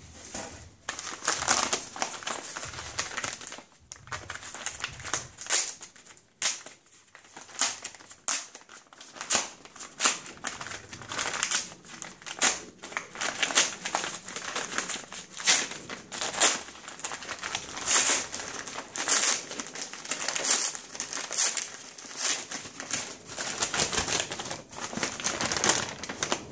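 Plastic packaging crinkling and rustling as it is handled and pulled apart, with many sharp crackles throughout.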